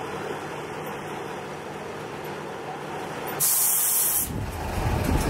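Crawler crane's engine running steadily, with a short loud hiss of released compressed air about three and a half seconds in, lasting under a second.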